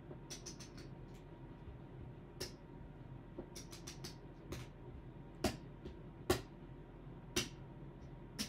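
Casino chips clicking as they are stacked and set down on the felt: a quick run of clicks near the start, another run about three and a half seconds in, then single sharper clicks spaced about a second apart.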